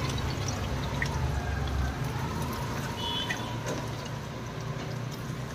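Battered cauliflower pieces deep-frying in a large iron kadai of hot oil: a steady sizzle with faint crackles, over a low steady hum.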